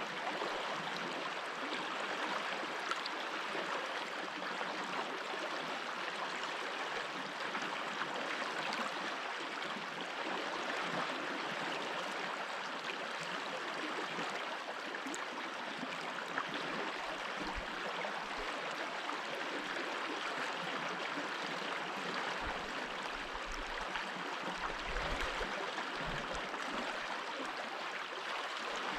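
Small stream of water running over stones, a steady even rush and babble with no pauses. A few brief low rumbles come in past the middle.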